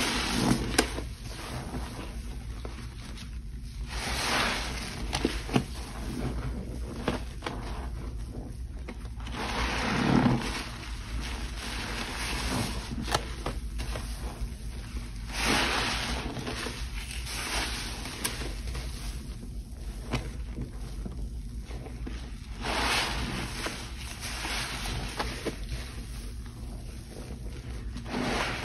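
Frothy, sudsy cleaning-product water being sloshed and squelched, with wet swells every five or six seconds and small wet clicks between them.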